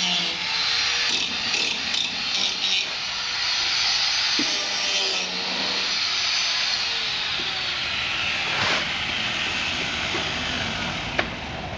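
Hand-held angle grinder grinding steel, a steady high hiss, then switched off and winding down, falling in pitch, about six seconds in. A single knock follows a couple of seconds later.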